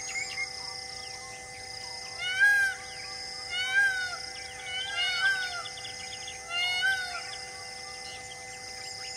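Four short animal calls about a second apart, each a pitched note that rises and falls, clear and loud against a steady background drone.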